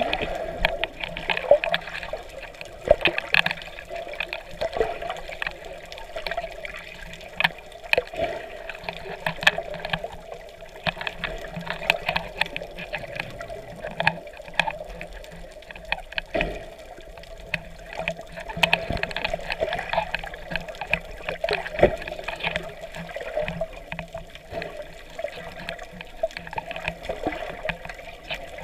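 Water heard from underwater by a submerged camera: a muffled, steady water sound with many small clicks and crackles scattered through it.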